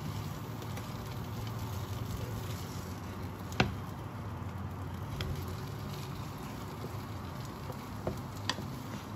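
Shredded cabbage frying in a nonstick pan with a steady sizzle, while a wooden spatula stirs and scrapes through it, with a sharp tap of the spatula on the pan about three and a half seconds in and a few lighter taps near the end.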